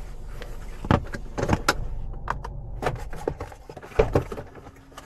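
Inside a Nissan car's cabin: a low rumble with a string of knocks and clicks, the loudest about a second in and about four seconds in. The rumble fades near the end.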